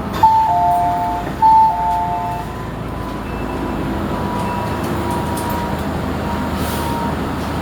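Inside an MTR M-train carriage, a two-note electronic chime, high note then low, sounds twice in quick succession about a second apart near the start, over the steady hum of the train.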